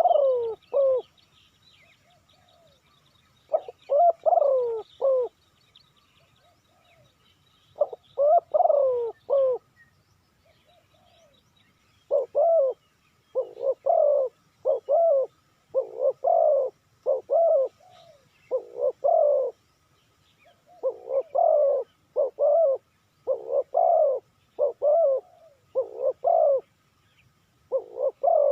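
Spotted dove cooing: short phrases of low coos repeated a few seconds apart at first, then coming almost back to back through the second half.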